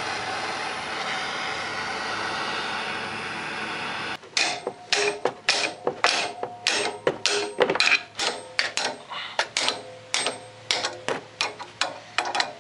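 A handheld gas torch hisses steadily for about four seconds as it heats the axle housing. Then comes a run of quick, uneven hammer blows on a steel wrench turning a jaw puller's screw, each with a short metallic ring. The mechanic is forcing a seized bearing race out of the golf cart's axle tube.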